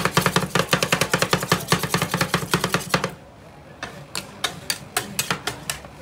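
Two metal spatulas chopping Oreo ice cream mix on a steel cold plate: a rapid, even clatter of blades striking the metal, which breaks off about three seconds in and gives way to slower, scattered taps.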